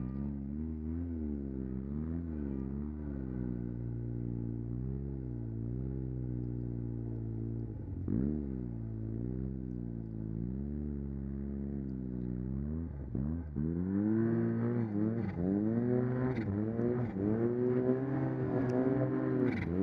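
Arctic Cat M1100 Turbo snowmobile engine with a custom-built exhaust, revving up and down as the throttle is worked under way. It drops away sharply about eight and thirteen seconds in, then runs louder and higher for the last several seconds while climbing a steep slope.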